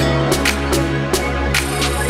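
Background electronic music with a steady beat over a held bass line.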